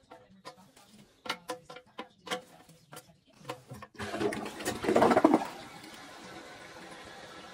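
A few light clicks and knocks. About four seconds in, a newly installed Toto toilet is test-flushed with its tank lever: a loud rush of water for about a second and a half, settling into a steady hiss of water running.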